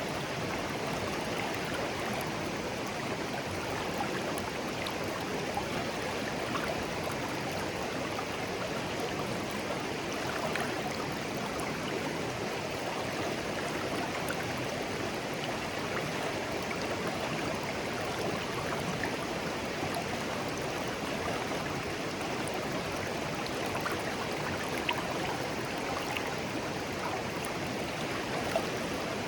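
A shallow, clear stream flowing gently, a steady babbling of water over stones with small splashes and trickles.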